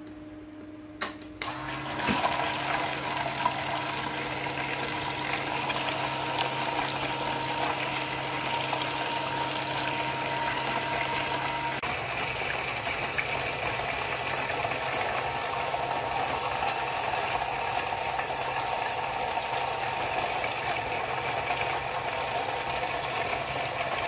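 Water jets from a homemade plastic-bottle waterfall fountain spraying and splashing steadily, starting about a second and a half in. A low steady hum from its small submersible pump runs underneath.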